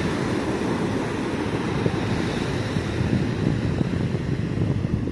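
Wind buffeting the microphone in a low, fluttering rush, with surf washing on the shore behind it.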